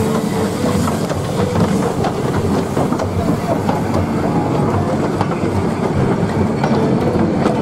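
Small steam saddle-tank locomotive hauling a carriage and a brake van past on the track, its wheels and rolling stock clattering.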